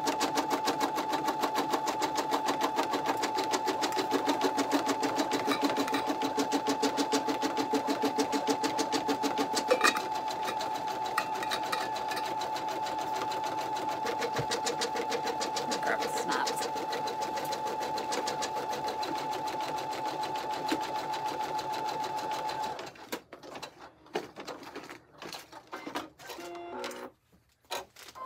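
Computerized embroidery machine stitching out a design: a steady hum with rapid, even needle strokes. It stops about 23 seconds in, and a few brief clicks and knocks follow.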